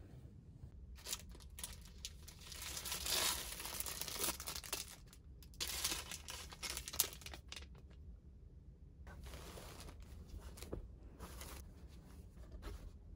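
Hands rustling and crinkling plastic wrapping and cloth in several separate bursts, with a few sharp clicks, as an amenity bag, towel and loungewear are taken out and handled.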